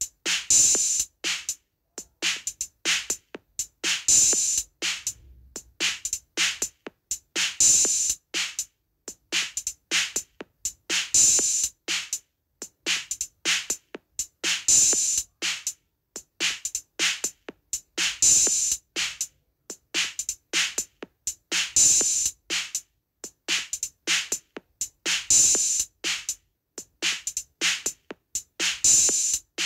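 Repeating drum rhythm in the style of a Turkish davul halay dance beat: a pattern of quick, sharp strokes that repeats about every three and a half seconds, each round opening on a loud accent.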